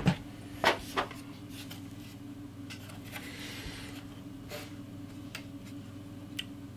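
Light knocks and clicks of a graphics card's bare circuit board being handled and set down on a table: a few sharper knocks in the first second, then scattered faint ticks and a brief soft rub, over a steady low hum.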